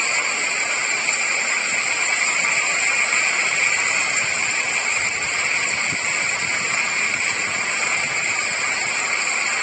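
Steady rushing hiss of heavy rain and floodwater, even throughout with no breaks.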